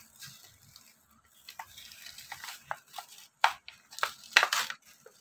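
Tech Deck fingerboard blister pack being pulled open by hand: plastic crinkling and card tearing, with several sharp cracks near the end.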